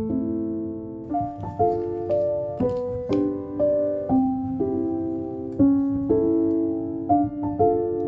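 Soothing solo piano music, chords and melody notes struck one after another at an unhurried pace.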